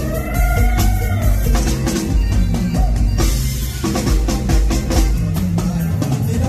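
Live stage band playing an instrumental passage, driven by a loud drum kit with a steady bass-drum and snare beat under bass and keyboard. A short gliding note is heard near the start.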